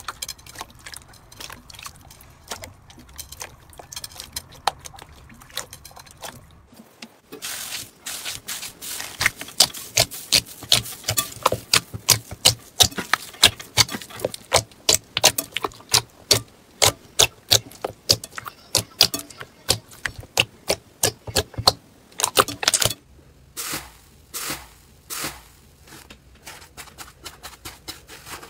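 Hands squishing, folding and squeezing slime in a bowl, making sharp wet pops and clicks. These are soft and scattered at first, come thick and fast, several a second, through the middle stretch, and thin out to separate pops near the end.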